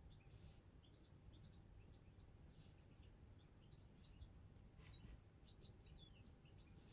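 Near silence with faint bird chirping: many short, high chirps several times a second over a low room rumble.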